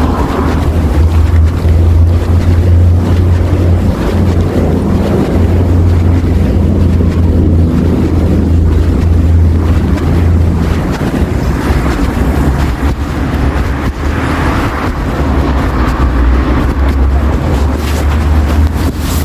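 City street traffic: the steady low rumble of a heavy engine over the hiss of passing vehicles. The rumble eases for a few seconds past the middle, then returns.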